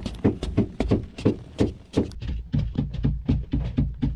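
Wooden digging sticks striking and chipping into hard-packed earth, a rapid uneven run of dull thuds, about three or four a second, from two men working at once.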